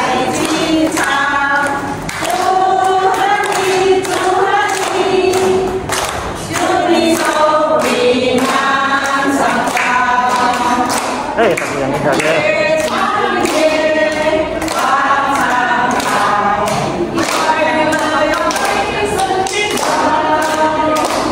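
A group of women singing a birthday song together, clapping along in a steady beat about twice a second.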